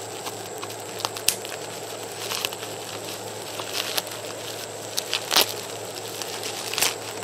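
Packaging crinkling and crackling as a wrapped part is unwrapped by hand, with scattered sharp crackles, the loudest about five seconds in.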